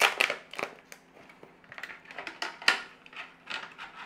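Clear plastic packaging of a ready-made Swiss roll crackling and clicking as it is pried open and the roll is taken out. The clicks are sharp and irregular, loudest at the very start and again about two and a half seconds in.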